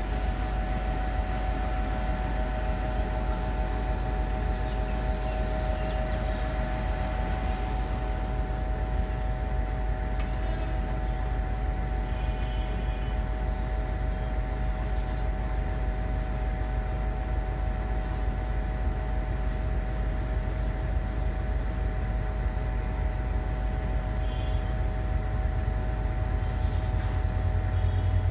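Diesel locomotive engine running steadily: a low rumble with a steady hum over it, the low rumble growing a little near the end.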